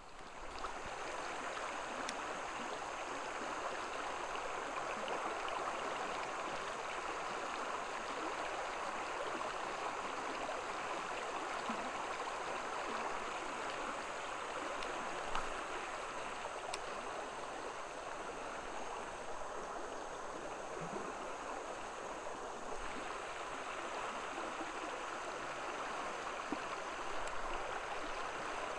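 River water flowing steadily over shallows in a constant rush, with one brief knock about halfway through.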